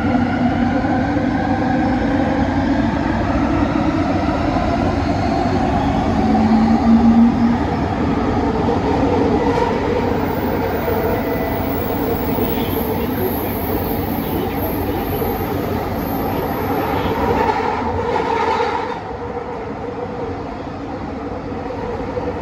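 Interior running noise of a Bombardier Innovia ART 200 light-metro car under way: a steady rumble with shifting motor tones, a thin high squeal through the middle, and the noise dropping a little near the end.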